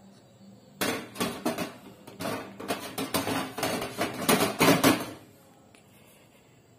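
Black enamelled steel pan support being set onto a Rinnai gas stove's stainless-steel top and shifted into place: a run of metal clinks and clatters that starts about a second in and stops after about four seconds.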